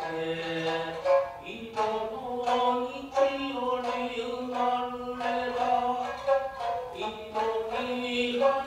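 Music for a Japanese puppet play: a chanter's long drawn-out sung notes that move slowly in pitch, over sharp plucked notes of a shamisen.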